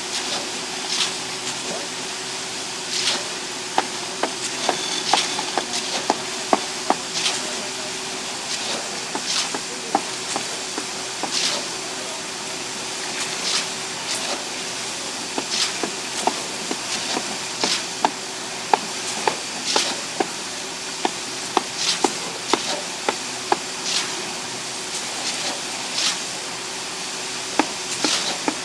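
Irregular sharp knocks and taps, one to several a second, over a steady hum, with a short hiss about every two seconds; the hum fades out about three-quarters of the way through.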